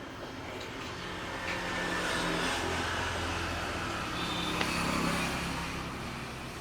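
A motor vehicle passing on the street, its engine hum and road noise swelling and then fading over a few seconds, with a few light clicks.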